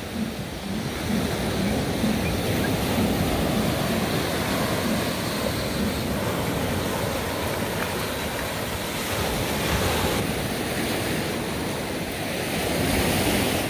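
Ocean surf breaking and washing up on a sandy beach, a steady rush of waves, with wind buffeting the microphone.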